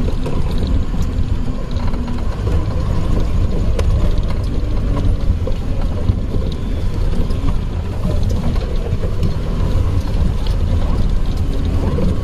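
Maruti Suzuki Gypsy engine running steadily as the jeep drives over rough off-road ground, with light rattles and knocks from the body.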